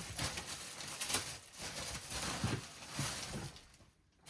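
Thin plastic packaging bag crinkling and rustling in irregular bursts as a garment is pulled out of it, dying away near the end.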